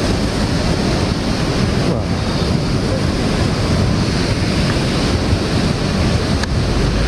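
Steady, loud rushing of a flooded river, mixed with wind buffeting the microphone.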